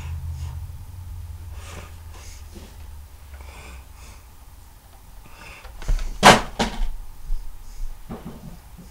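Handling noises: scattered clicks and knocks, with one sharp clack about six seconds in and a few lighter knocks after it.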